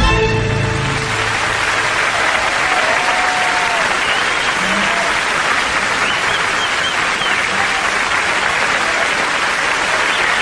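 Large studio audience applauding steadily. The last note of the tango music fades out about a second in.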